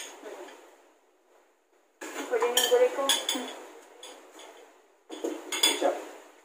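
Cutlery clinking and scraping on plates while eating, in two bouts of clatter with a short pause between.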